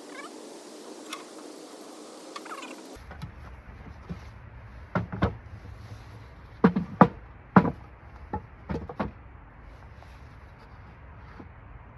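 A series of sharp knocks and thuds, about eight in four seconds, with the loudest in the middle: hard objects being handled or knocked together. Before them there is a few seconds of steady background with a few faint high chirps.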